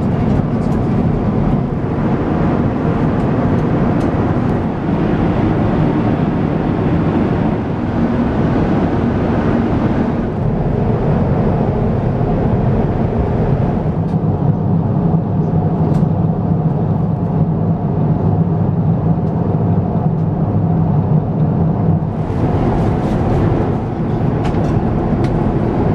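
Steady cabin noise of an Airbus A350-1000 airliner at cruise altitude: the constant rush of airflow and engine noise through the fuselage, with a low hum under it. The sound thins a little about halfway through and fills out again near the end.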